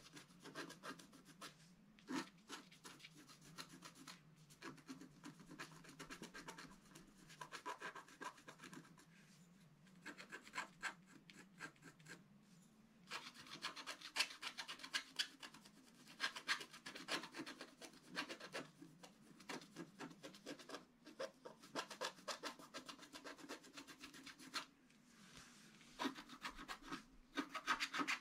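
Wooden stylus scratching the black coating off scratch-art paper in rapid short strokes, filling in an area of colour. The scratching grows louder and denser about halfway through.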